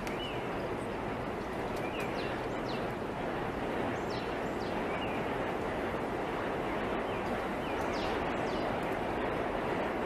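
Steady rushing noise like moving water, with several short, high, falling chirps scattered through it.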